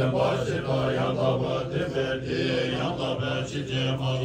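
Tibetan Buddhist monks chanting prayers together from their texts, a low, steady group recitation.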